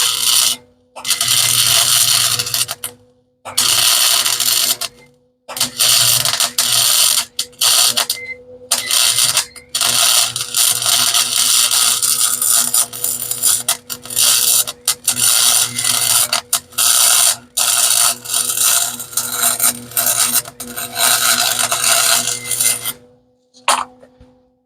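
Electric welder's arc crackling while a bead is laid on steel shock mounts, over a steady low buzz. It runs in several short runs with brief stops in the first five seconds, then one long continuous run that cuts off shortly before the end.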